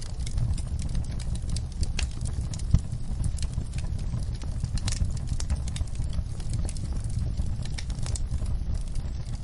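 Logs burning in a fireplace: a steady low rumble of flames with frequent sharp crackles and pops, one louder pop about a third of the way in.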